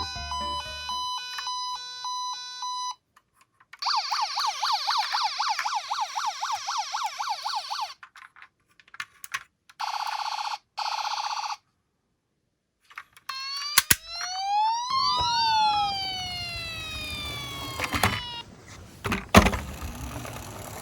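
Battery-powered toy emergency vehicle sirens: after a short jingle, an electronic siren warbles fast for a few seconds, then sounds again briefly. About halfway through a siren sweeps up in pitch and falls back, over rattling and several sharp knocks as the toy cars roll down the slope.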